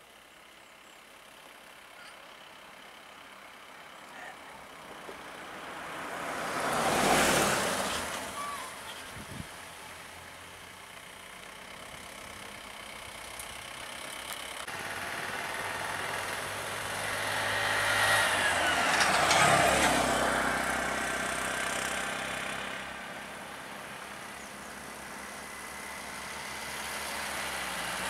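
Motor vehicles driving past on a paved road. Engine and tyre noise swells up to a close pass about seven seconds in and again around nineteen seconds, with an engine hum running steadily in between.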